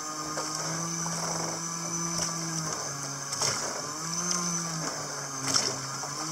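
Motorized outrigger bangka boat's engine running steadily, its pitch shifting up and down a few times. A few short sharp noises stand out over it, the loudest about five and a half seconds in.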